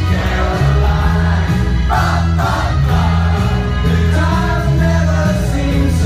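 Music with singing, played loud over a DJ's sound system, with a heavy bass line under the voices.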